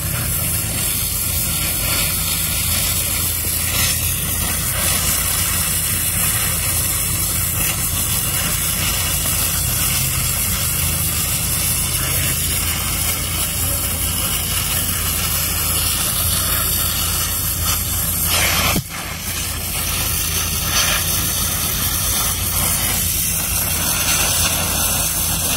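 Gas welding torch flame hissing and rumbling steadily as filler rod is melted into a butt joint between two steel plates, with a momentary drop about nineteen seconds in.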